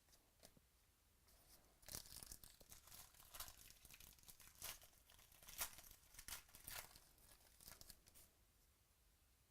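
A foil trading-card pack wrapper being torn open and crinkled: a run of quiet rustling tears that starts about two seconds in and stops near the end.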